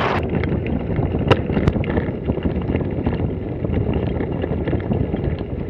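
Bicycle tyres rolling over a rough gravel track, a steady low rumble with frequent small clicks and crunches, mixed with wind buffeting the microphone.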